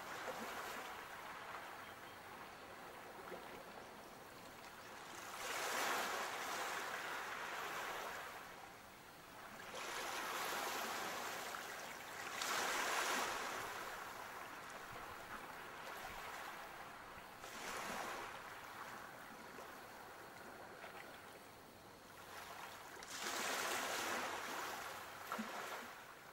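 Quiet sea waves washing onto a sandy shore, each wash swelling and falling away over a second or two, about every four to six seconds.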